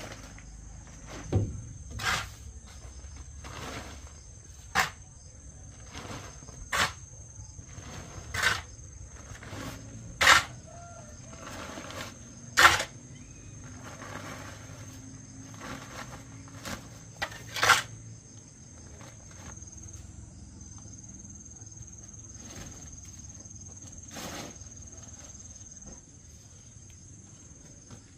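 Shovel blade scraping and thudding into loose soil as it is scooped up and tipped into a woven feed sack, a sharp stroke every second or two, thinning out after about 18 seconds. Insects keep up a steady high-pitched buzz behind it.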